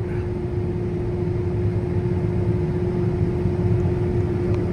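Combine harvester running at harvest load while unloading grain through its auger: a steady, even machine drone with a constant whine held over it.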